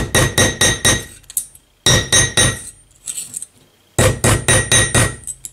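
Hammer blows flattening a spent brass rifle cartridge casing on a homemade railroad-track anvil, the steel ringing with each strike. Three runs of quick blows, several a second, with short pauses between.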